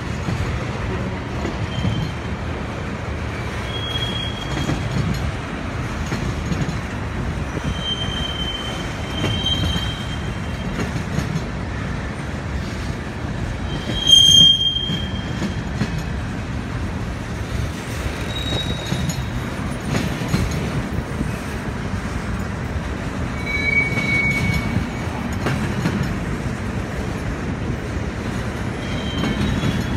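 Freight trains rolling past: a steady low rumble of steel wheels on rail, with short high-pitched wheel squeals every few seconds. The loudest squeal comes about fourteen seconds in.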